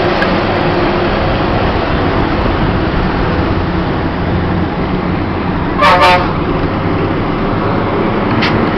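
Bus engine running with steady road noise, heard from inside the moving bus. A vehicle horn toots once, briefly, about six seconds in, loudest moment.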